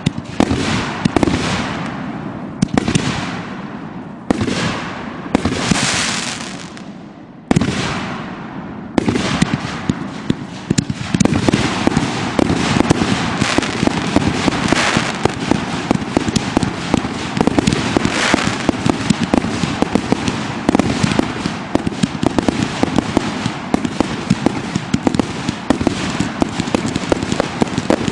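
Consumer aerial fireworks going off overhead. At first there are separate bursts about every second and a half, each trailing off in crackle. About nine seconds in, a dense rapid-fire barrage of reports takes over and keeps going without a break.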